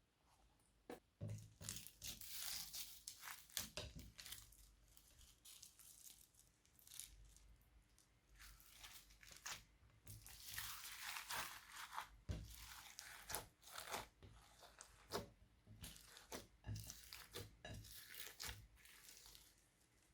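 Glossy slime being squished and stretched by hand: a run of faint sticky crackles and small pops, with longer crackly stretches in between.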